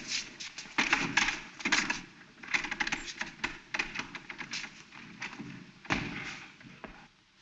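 Irregular knocks and thumps of shoes on a wooden floor and hands on a wooden railing gate, as the gate is rattled and climbed over. There is a louder thump about six seconds in.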